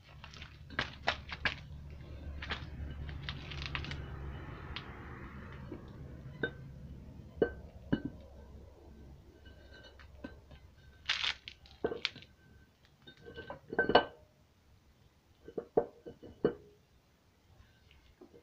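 Steel flywheel being handled and fitted onto the crankshaft of a Peugeot 504 diesel engine: a low scraping rumble for the first few seconds, then scattered metal clinks and knocks, the loudest ones about halfway through.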